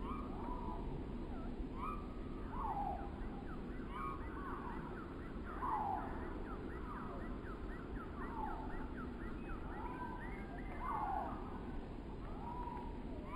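Wind blowing through trees and across the microphone, with birds calling over it: scattered sliding calls that fall in pitch, and a quick run of short falling notes in the middle.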